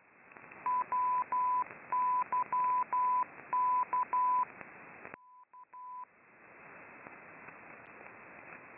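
Shortwave receiver audio in upper sideband on the 8 MHz maritime band: a hiss of band noise with a single mid-pitched tone keyed on and off in long and short pulses, a Morse code (CW) transmission. It runs for about four seconds, then the hiss briefly drops out and a few more short pulses follow.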